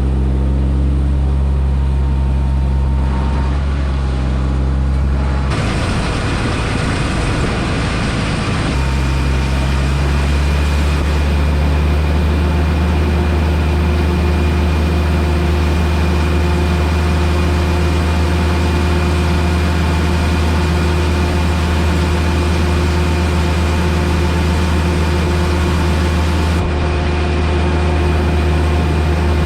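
Farm tractor's diesel engine running steadily with a low, even hum. A few seconds in it briefly turns to a rougher, noisier rumble, then settles back to the steady tone.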